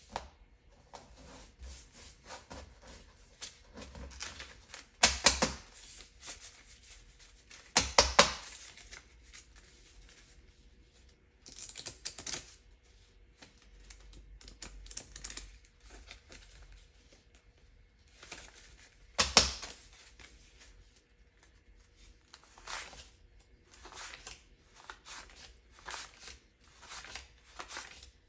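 Crisp paper banknotes rustling, flicking and crinkling as they are gathered and counted by hand. The sound comes in short irregular bursts, with a few louder rustles at several points.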